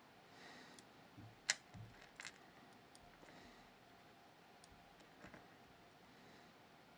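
A few faint, sharp metallic clicks of small lock parts, pins and wafers of a Miwa Kaba Star dimple lock, being handled during disassembly; the sharpest comes about a second and a half in, with a second shortly after.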